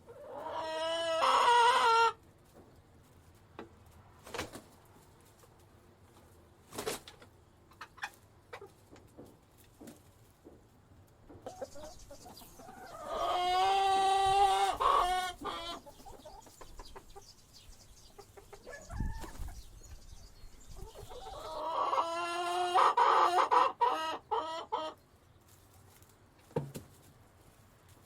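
Rooster crowing three times, each crow lasting about two to three seconds, with faint short clucks between the crows.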